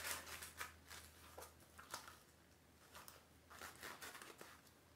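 Near silence with faint, scattered rustles and soft taps from a sequined slip-on flat being turned over in the hands.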